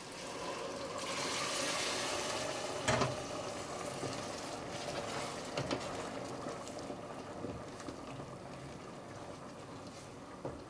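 Liquid hissing and bubbling in a hot pan on the stove. The hiss swells about a second in and slowly dies away, with a knock of a utensil against the pot about three seconds in and light spoon clicks in the pot later.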